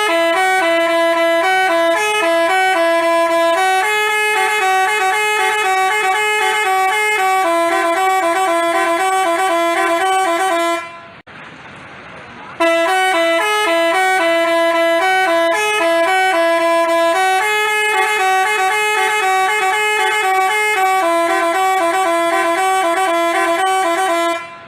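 Basuri-type telolet bus horn playing a melody of stepped horn notes. It plays two phrases of about eleven seconds each, with a short break between them.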